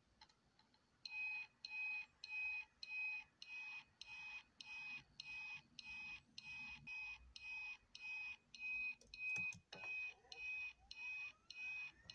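Electronic beeping from a Voyagers! Omni time-device prop: short multi-pitched beeps repeating about two a second, with a brief click about nine seconds in.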